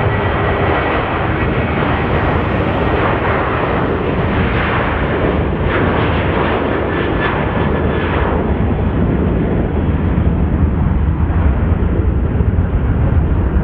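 Twin CFM56-7B jet engines of a Boeing 737-800 running on the runway as the airliner rolls along, a steady loud jet roar. The higher part of the roar fades after about eight seconds, leaving a low rumble.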